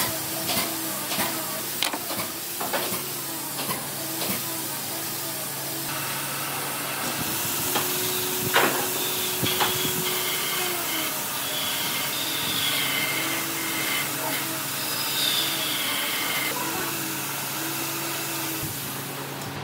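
Pencil scratching marking lines along rough wood, with light taps of a square set down on the boards, over a steady hiss and low hum.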